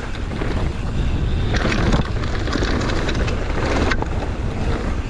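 Wind rushing over the microphone and a mountain bike's tyres rumbling over a dirt trail at speed, with frequent short rattles and clicks from the bike over bumps.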